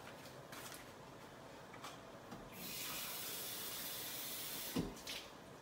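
Kitchen tap running in a steady hiss for about two seconds, starting about halfway in, then shut off, followed by a soft knock.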